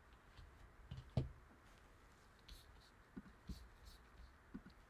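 Trading cards being handled on a table: a few faint clicks and taps, with one sharper knock about a second in.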